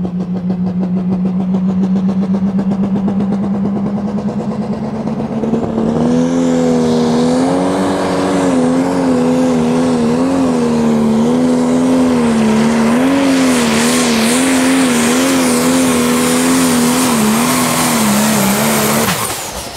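Turbocharged diesel engine of a Case IH MX285 Pro Stock pulling tractor running at steady high revs. About five seconds in it gets louder and higher as the tractor pulls the sled, its pitch wavering up and down, then it cuts off abruptly near the end.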